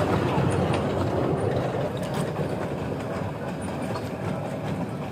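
Small amusement-park ride train running along its narrow track: a steady rumble with occasional clicks, getting slightly fainter as it moves away.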